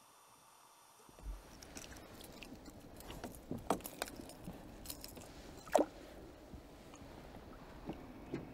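Sharp metallic clicks and light clatter of a lure's hooks being worked free of a small pike's mouth by hand at a boat's side, over a faint steady background. For about a second at the start it is nearly silent, then a dull thump and the scattered clicks follow.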